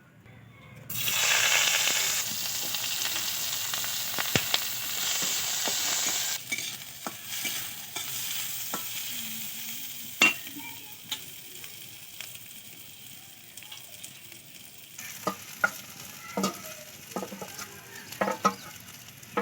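Food hitting hot oil in a cooking pan: a loud sizzle starts suddenly about a second in and eases off after a few seconds into a softer frying hiss. Through the softer part a spatula stirs the food, with scattered clicks and scrapes against the pan that come more often near the end.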